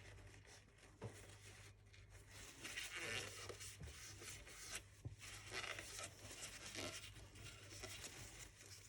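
Faint scraping and rustling as small nitro engine parts are handled during disassembly, with a couple of light clicks, over a steady low hum.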